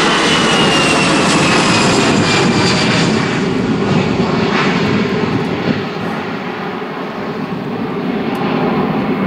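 Airbus A320-family airliner's twin jet engines at takeoff thrust as it climbs away: a loud steady roar with a high whine that slides down in pitch, easing off slightly in the second half.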